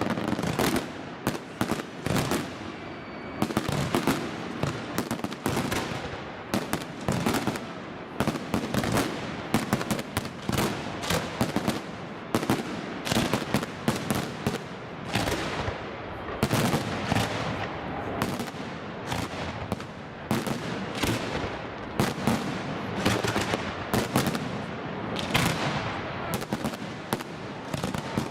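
Fireworks display: a dense, continuous barrage of aerial shell bursts and crackling bangs, many per second.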